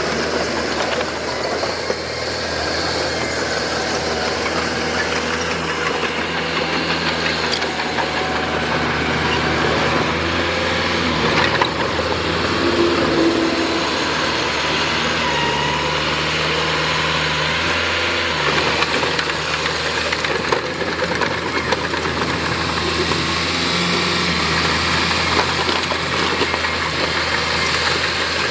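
Heavy diesel engine of construction machinery running steadily, its pitch stepping up and down a few times as the load changes, with a few sharp clanks.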